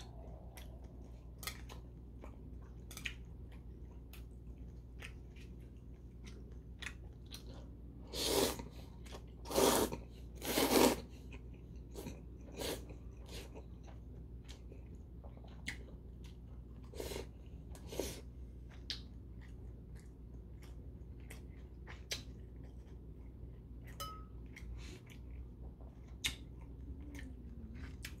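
A man eating noodles with chewing and lip-smacking, with small clicks scattered throughout. Three loud slurps of noodles come in quick succession about a third of the way through.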